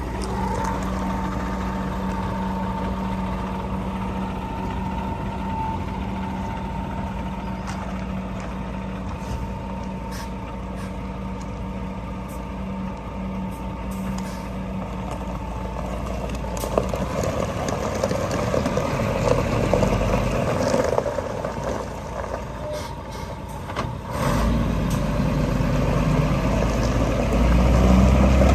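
Scania vacuum truck's diesel engine running at idle, with a steady whine over it in the first half. From about halfway the sound grows fuller and shifts, dips briefly, then rises again and is loudest near the end.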